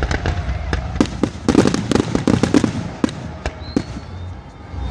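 Aerial fireworks crackling and popping: many sharp cracks over a low rumble, coming thickest in a rapid cluster about a second and a half in, then thinning out to scattered pops.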